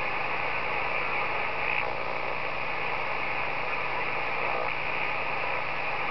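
Steady static and band noise from an Icom IC-718 HF transceiver's speaker as its tuning knob is turned across the 80-meter band, with no station coming through.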